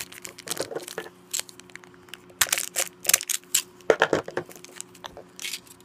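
Small ring wrapper crinkling and crackling as it is handled, in irregular clusters of sharp crackles, densest around the middle.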